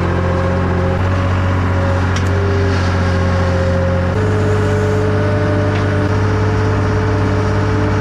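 Tractor engine running steadily, its note stepping to a slightly different pitch about a second in and again about four seconds in.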